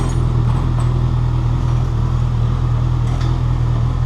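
A vehicle's engine idling steadily with a loud, deep, unchanging drone, with a few faint metal clinks of hardware being picked through.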